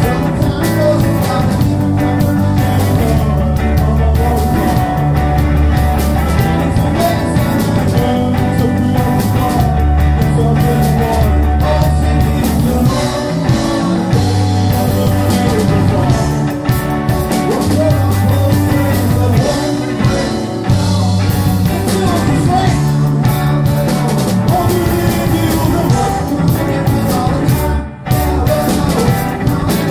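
Live rock band playing: electric guitar, drum kit and keyboards, over low bass notes that change every couple of seconds.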